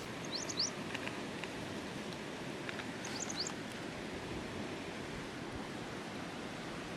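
Steady rush of a river, with a small bird calling twice over it, each call a quick run of three or four sharp rising chirps, near the start and about three seconds in.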